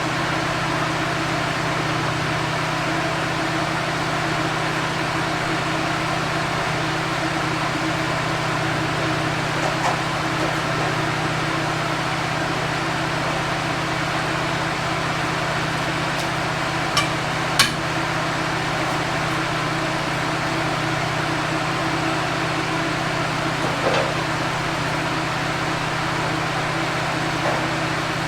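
An engine running steadily at a constant speed, with a few sharp knocks about two-thirds of the way through.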